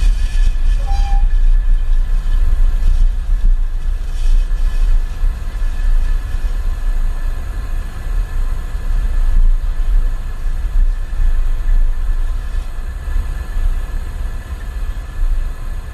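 Falcon 9 first stage's nine Merlin 1D engines during ascent: a deep, steady rumble that eases slightly near the end.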